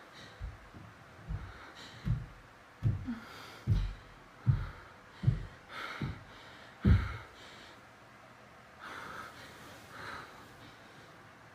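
A run of about nine dull, low thuds, evenly spaced a little under a second apart and growing louder, followed by two soft breathy hisses.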